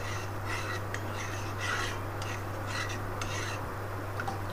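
Steel spoon scraping and clinking against the inside of an aluminium pot as a thin sauce is stirred, in short strokes about two a second, over a steady low hum.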